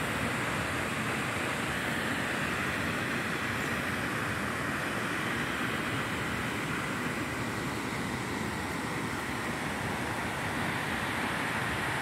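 Steady, even rushing of a waterfall heard from a lookout high above it, unchanging throughout.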